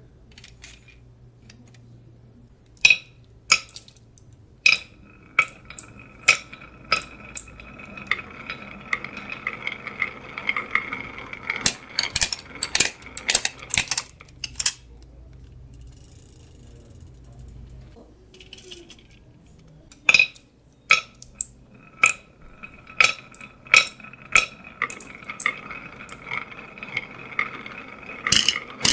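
Marbles rolling and clacking down a HABA marble run: many sharp clicks as they drop and strike the track, with a steady ringing hum while they roll. This comes in two spells with a quieter pause in the middle.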